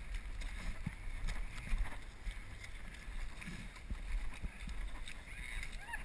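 Feet wading and sloshing through deep, wet mud, with irregular soft steps and a steady low wind rumble on the microphone.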